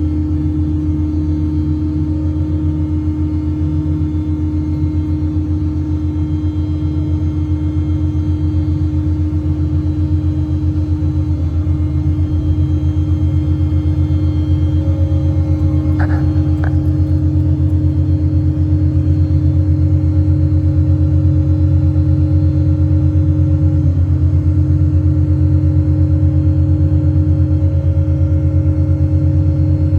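Truck-mounted hydraulic air compressor running steadily, a loud low pulsing drone with a steady hum over it, just after kicking on. Two short clicks sound about 16 seconds in.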